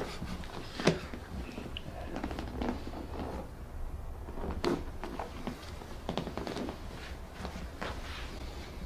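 One sharp crack about a second in, then scattered softer clicks and knocks with rustling of people moving, over a low steady hum.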